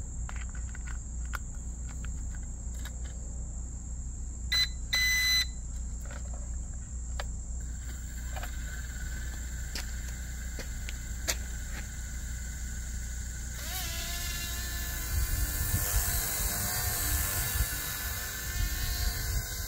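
Small electric RC helicopter being readied and flown: sharp plastic clicks as the rotor blades are fitted and handled, and two short electronic beeps about five seconds in. From about eight seconds a faint steady whine sets in; about fourteen seconds in the motor spins up with a rising whine into a steady buzzing drone of motor and rotor, while the rotor downwash buffets the microphone as the helicopter lifts off.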